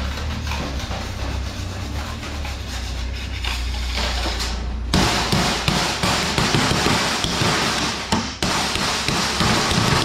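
Hammer blows on a galvanized sheet-steel rear wing: quick, irregular knocks with a hollow, drum-like ring, starting about five seconds in. Before that, a steady low hum.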